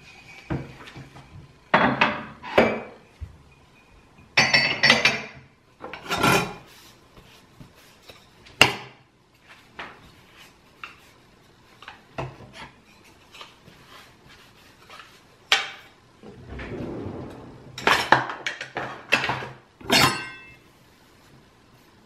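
Kitchen utensils, a steel knife, a wooden spatula and chopsticks, being wiped with a cloth and laid down on a sink drainboard: irregular clinks and knocks of metal and wood, some with a short metallic ring.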